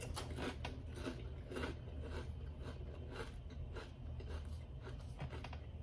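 A person chewing and biting crunchy food, with irregular crunches and clicks throughout.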